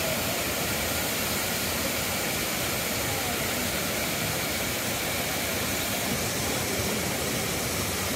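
Steady rush of the Kravica waterfalls, an even wash of falling water with no breaks.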